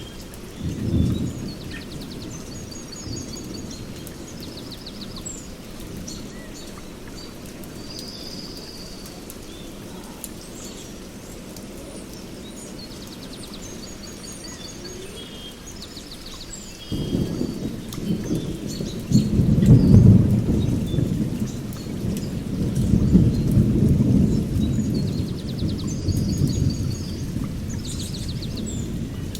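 Thunder rumbling over a steady hiss of rain, with birds chirping and trilling throughout. A short low rumble comes about a second in; a little past halfway a long rolling peal of thunder starts suddenly and keeps rumbling, swelling twice.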